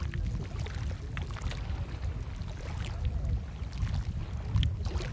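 Water splashing and lapping around a wooden canoe as a fishing net is lifted and handled, with scattered wooden knocks from poles and the hull, over a low steady rumble.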